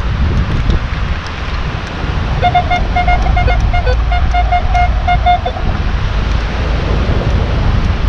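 Wind buffeting the microphone throughout. In the middle, for about three seconds, a metal detector beeps at one steady pitch, about four beeps a second, signalling a buried target.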